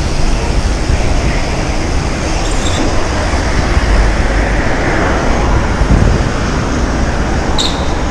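Loud steady rumble of wind and road noise while riding a BMX through city streets, with a brief high squeak near the end.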